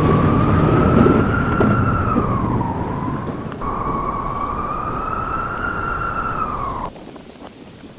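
Blizzard wind howling: a clear whistling tone that swells and sags in two long arcs over a low storm rumble, then cuts off suddenly about seven seconds in.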